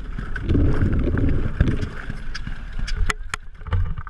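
A small stationary gasoline engine running, its exhaust popping in uneven sharp clicks, with a dense low rumble about half a second in that lasts about a second.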